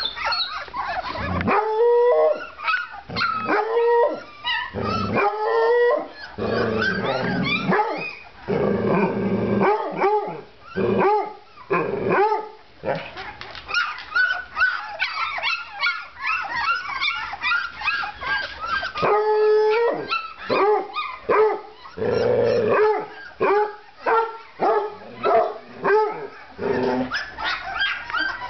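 Dogs yelping and howling: many short, rising and falling calls in quick succession, with a few longer howls among them.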